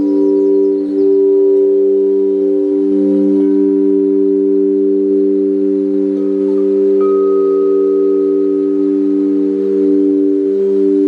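Several frosted crystal singing bowls played with wands, sounding together as overlapping steady tones. The tones pulse slowly in loudness, and a fainter high tone joins about halfway through.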